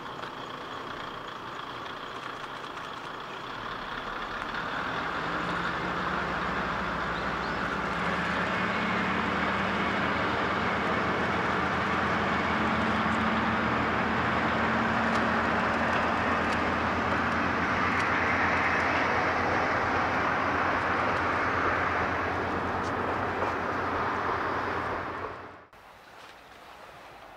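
Diesel railcar engine idling, then from about four seconds in it rises and runs louder and steadily as the railcar pulls away from the station under power. The sound cuts off abruptly near the end.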